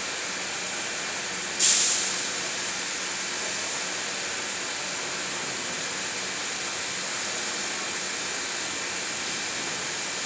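Windshield glass bending furnace machinery running with a steady hiss. About one and a half seconds in comes one short, sharp burst of hissing that fades within half a second.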